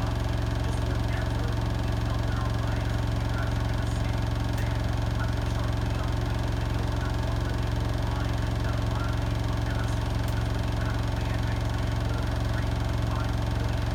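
Hotpoint WMFUG 942 washing machine running steadily through its Cotton Standard 60 programme, a constant low hum that neither rises nor falls.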